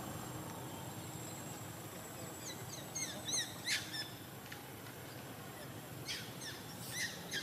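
Birds chirping in short runs of quick, falling high notes, about three to four seconds in and again near the end, over a steady outdoor background hum.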